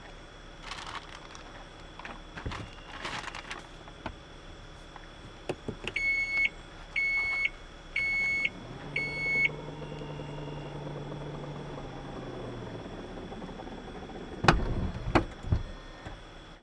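Minivan power liftgate closing: four high warning beeps about a second apart, then the low hum of the liftgate motor for a few seconds. Two heavy thumps near the end.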